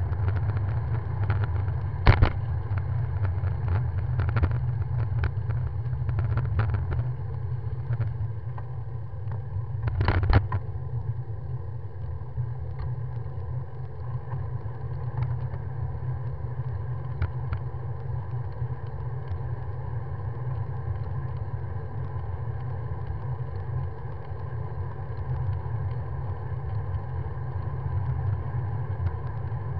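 Wind buffeting the microphone of a handlebar-mounted camera on a moving bicycle: a steady low rumble with road noise, broken by a few sharp knocks from bumps, the loudest about two seconds in and again about ten seconds in.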